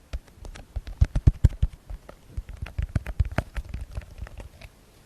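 ASMR tapping: fingertips and nails tapping quickly and irregularly on an object close to the microphone, giving sharp clicks mixed with dull low knocks.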